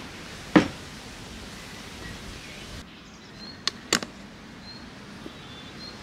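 A sharp thump, then about three seconds later two or three quick sharp clicks as the snap-on lid of a plastic paint bucket is pried open. Faint bird chirps in the background.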